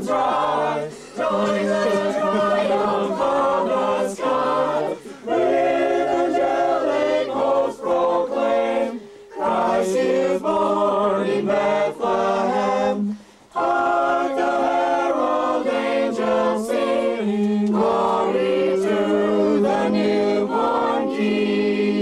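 A small group of adults and children singing a Christmas carol together, unaccompanied, in phrases with short breaths between them.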